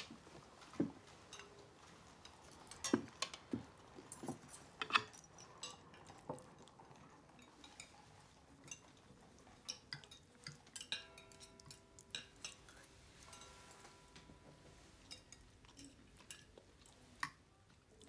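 Cutlery clinking and tapping on plates at a meal, in scattered light clicks. A soft held tone sounds twice around the middle.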